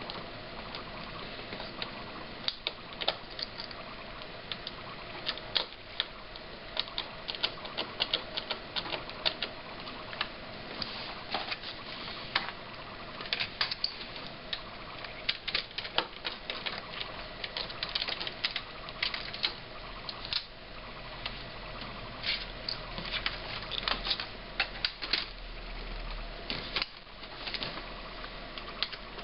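Irregular sharp clicks and scrapes of hand work on a laptop's plastic case, coming in quick clusters with short pauses between them, over a steady low hum.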